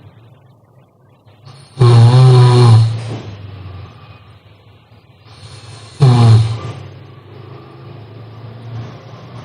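A sleeping person snoring: two loud snores about four seconds apart, with quieter breathing between them.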